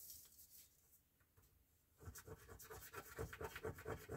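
Scratch-off card being scratched: faint, sparse scrapes at first, then quick, repeated scraping strokes from about halfway, several a second.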